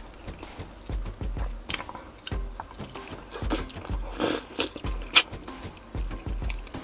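Close-miked mouth sounds of a man eating Filipino roast chicken (lechon manok) by hand: wet chewing and lip smacks with sharp clicks at irregular intervals, the loudest about five seconds in.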